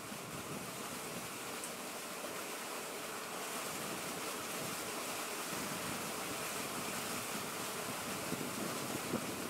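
Steady outdoor riverbank ambience: an even hiss of wind and flowing river water, with no distinct events.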